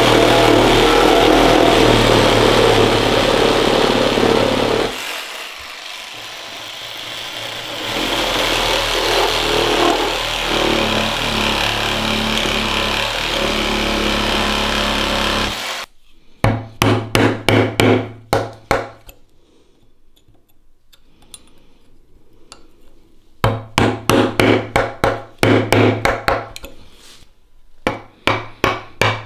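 A cordless reciprocating saw cutting into a wooden post, running steadily with a lull about five seconds in, then stopping after about sixteen seconds. After that a carving chisel is driven into the wood by sharp mallet blows in quick runs of about four a second, with pauses between the runs.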